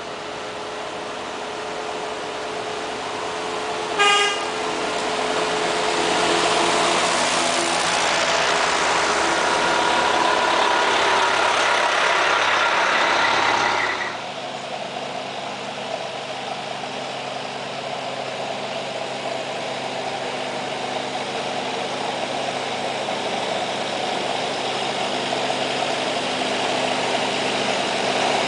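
Parade vehicles passing on a road: a short horn toot about four seconds in, then an engine growing loud as a vehicle goes by close, cutting off suddenly midway. After that an old farm tractor's engine runs steadily, slowly getting louder as it approaches.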